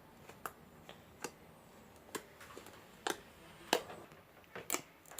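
Homemade glue slime being squished and stretched by hand, giving off faint, irregular sticky clicks and pops, several in a few seconds.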